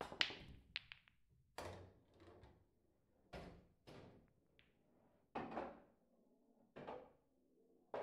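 Billiard balls and cue clacking and knocking during play: about a dozen sharp, irregularly spaced knocks, some in quick pairs, several with a duller thud under the click.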